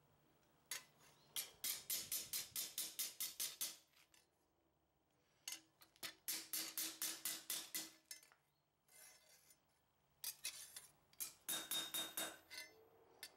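Hammer blows on a steel sickle blade laid across a steel block anvil, straightening the bent blade. They come in three runs of quick strikes, about four a second, and each strike has a short metallic ring.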